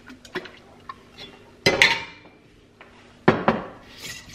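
Kitchenware clattering on a gas stove: an enamelled pot and a glass half-gallon mason jar being handled and set down, with a few light clicks, then two loud clanks with short ringing. Near the end the jar's metal lid scrapes as it is twisted.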